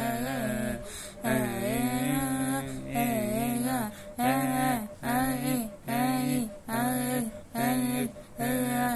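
The tune of an Arabic scout chant sung or hummed without clear words, in short repeated phrases that speed up to about one a second in the second half.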